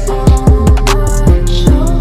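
Background music with a heavy bass line and a repeated kick drum beat.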